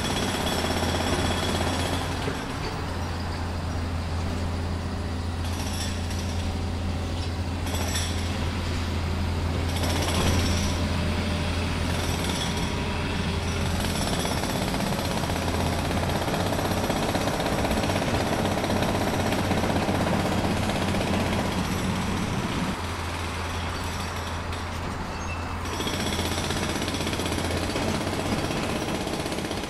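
Continuous jackhammer-like mechanical rattling over a low hum from radio-controlled model construction machinery at work. It drops a little in level about three-quarters of the way through, then picks up again.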